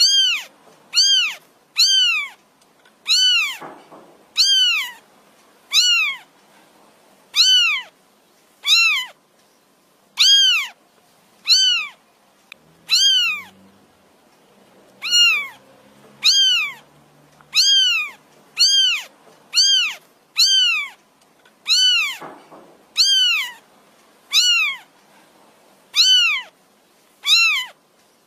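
Kitten meowing over and over, high-pitched cries that each rise and fall in pitch, about one a second, calling for its mother.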